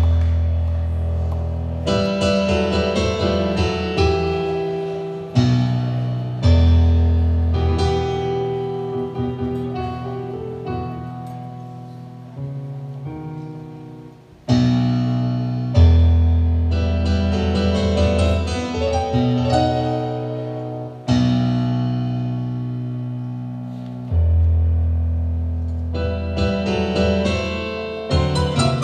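Stage keyboard played with a piano sound: slow, ringing chords over deep bass notes struck every few seconds, each left to fade away. Recorded on a mobile phone.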